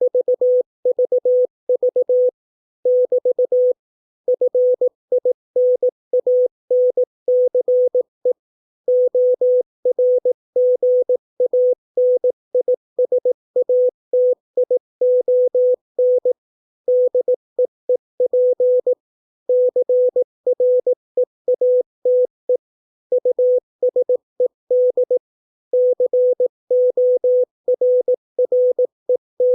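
Morse code (CW) practice tone at 18 words per minute: a single mid-pitched tone keyed in quick dots and dashes, with longer pauses between words.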